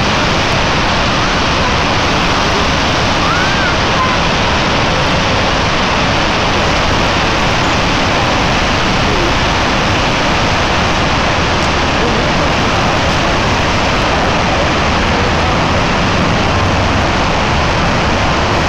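Dam spillway discharging: a torrent of water plunging and churning into the river below, heard as a loud, steady rush.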